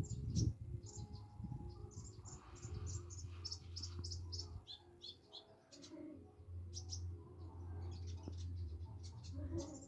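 A konin (kolibri ninja), a small sunbird, giving short, high chirps and tweets in scattered groups: a soft, tentative practice song from a bird that is not yet singing fully. A low steady hum runs underneath.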